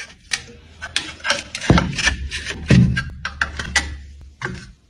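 Metal hand trowels scraping and clacking on a tiled floor as someone shuffles along standing on them: an irregular run of sharp scrapes and clacks, with two heavier thuds.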